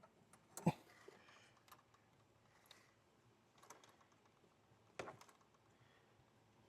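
Scattered plastic clicks and knocks from hands working at the back of a car's headlight housing to get at the low-beam bulb. There are five or so irregular clicks, the loudest about a second in and another near the five-second mark.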